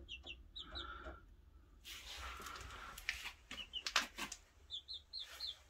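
Silkie chicks peeping faintly in runs of short, high, falling chirps, with a patch of rustling and a few sharp taps in between.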